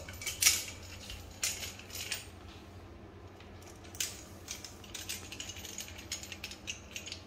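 Aluminium folding bike being handled for folding: a string of metallic clicks, clacks and rattles from its frame and handlebar-stem hinge clamp. The loudest clack comes about half a second in and another sharp one about four seconds in.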